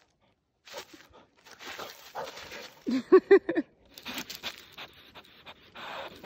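A dog panting and sniffing at close range, with a quick run of four short pitched calls about three seconds in, the loudest moment.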